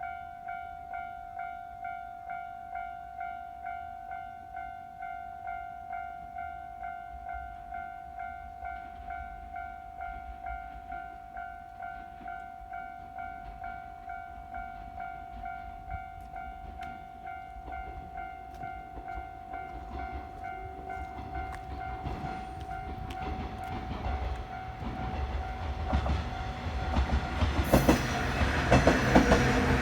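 Japanese level-crossing alarm ringing, a steady electronic ding repeating about twice a second, as a train approaches and grows louder from about two-thirds of the way in, then passes close with wheels clattering over the rail joints near the end.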